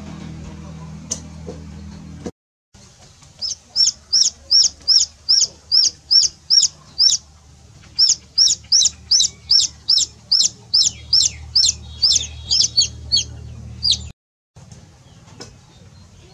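Chicks peeping: a fast, regular run of loud, high, downward-sliding peeps, about three a second. Before the peeping, a low steady hum that cuts off about two seconds in.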